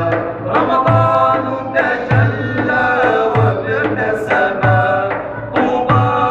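A group of men singing an Arabic devotional ibtihal together, accompanied by a hand-held frame drum. The drum gives a deep stroke about every second and a quarter under the voices.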